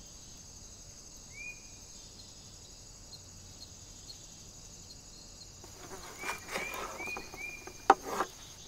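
Steady high chirring of crickets, with a few short bird chirps about a second in and again later. From about six seconds in, a knife works raw salmon on a wooden cutting board, ending in a sharp knock of the blade on the board near the end.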